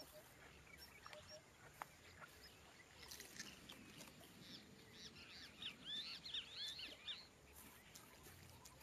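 Faint, high squeaky begging calls of a young jabiru stork: a quick flurry of short chirps between about three and seven seconds in, after a couple of soft clicks.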